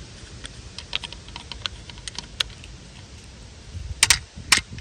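Small metallic clicks and taps of an adjustable (crescent) wrench being fitted to and worked on the flats of a Nissan Sentra range switch shaft, with a few louder clacks about four seconds in and near the end.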